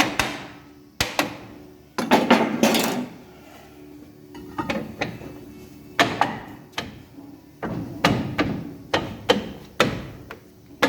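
Hammer strikes on steel brake parts, a few scattered knocks and then a run of about three a second in the second half, each with a short metallic ring: knocking the adjuster wedge of a drum brake back to slacken brake shoes that had been spread too far.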